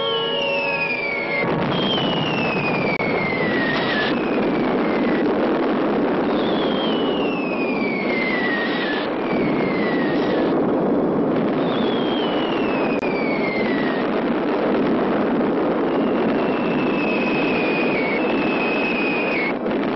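Air-raid sound: an air-raid siren that stops about a second and a half in, then a continuous din of explosions crossed by about six falling whistles of dropping bombs, each sliding down in pitch over a couple of seconds.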